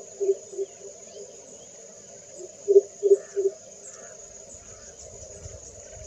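Southern coucal giving its deep booming coop-coop call: the last few notes of one series at the start, then three low hoots in quick succession about three seconds in, over a steady chorus of insects.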